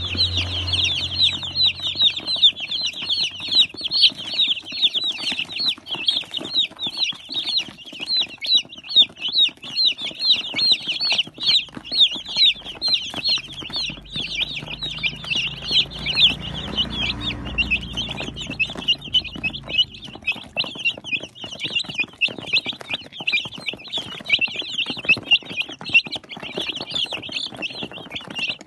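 A brood of chicks peeping nonstop: many high, short, overlapping cheeps with no pause. A low rumble comes in near the start and again around the middle.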